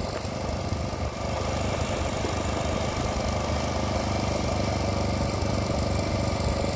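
Small engine running steadily at a constant speed, most likely the portable generator that serves the spray-drone crew.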